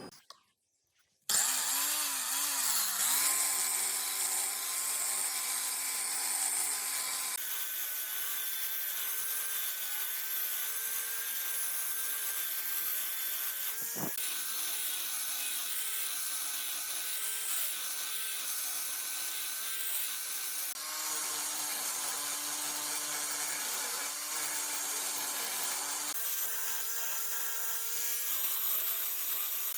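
Wood lathe spinning a wooden blank while it is worked, a steady hiss of wood being cut and rubbed over a steady motor hum. It starts after about a second of silence, changes abruptly several times, and has one sharp click partway through.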